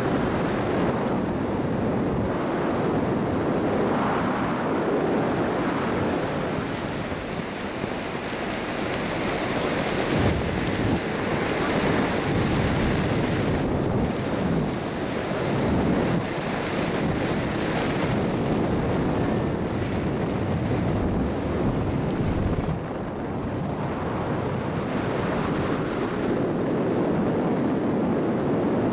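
Wind rushing over the microphone of a parachutist's helmet camera during descent under an open canopy: a continuous rushing noise that swells and eases.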